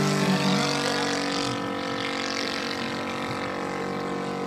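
Saito FG-84R3 three-cylinder radial four-stroke gasoline engine of a 1/3-scale Piper J-3 Cub RC model running in flight. The engine drone passes and recedes, getting quieter after about a second and a half.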